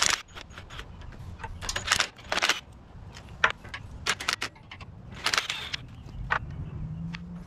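Cordless driver with a socket run in a series of short bursts, spinning out the bolts of a John Deere tiller's chain-case cover, with metallic clinks of socket and bolts. This is the chain gearbox being opened up to check a suspected broken drive chain.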